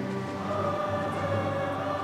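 A choir singing sustained, held notes.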